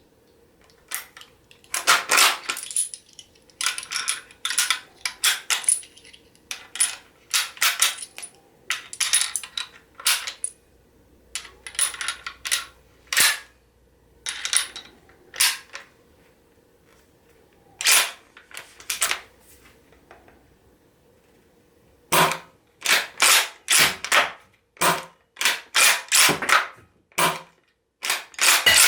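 Kar98k bolt-action rifle model gun being worked by hand: repeated sharp metallic clicks and clacks of the mechanism, some single and some in quick clusters, with a quieter stretch about two-thirds of the way through.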